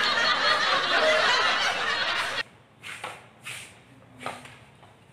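A roomful of students laughing together, a loud mass of laughter that cuts off suddenly about two and a half seconds in. After that there are only a few faint, short sounds.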